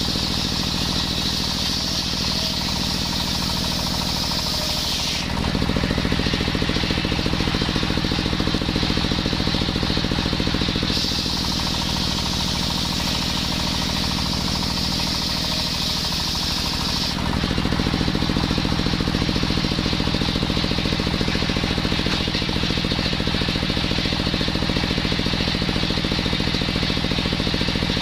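Engine-driven circular saw running steadily, twice biting into coconut wood: each cut adds a high hissing rasp of the blade for about five to six seconds, then drops back to the engine alone.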